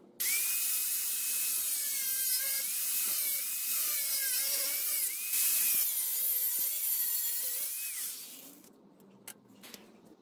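Angle grinder with a thin cut-off disc cutting through flat steel bar stock: it starts suddenly, a loud hiss of the cut over a motor whine whose pitch dips again and again as the disc bites under load. It winds down about eight seconds in, and a couple of faint clicks follow.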